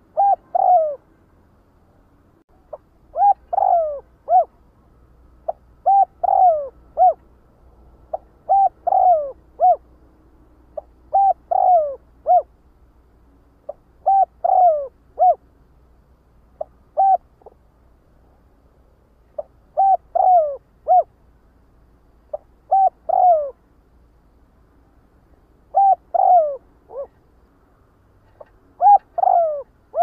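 Spotted dove cooing: a short phrase of two to four falling coo notes, repeated about every three seconds.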